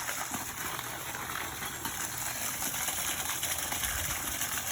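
Water gushing steadily out of a freshly cut water supply pipe and splashing, as the water left in the line drains out.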